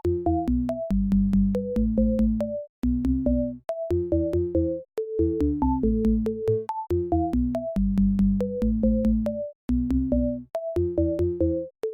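Synthesized electronic intro music: a bright keyboard melody over a repeating bass line with a steady beat.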